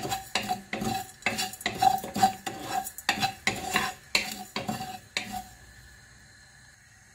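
Wooden spatula stirring whole spices as they dry-roast in a non-stick frying pan: quick scraping strokes against the pan, about three a second, that stop about five and a half seconds in.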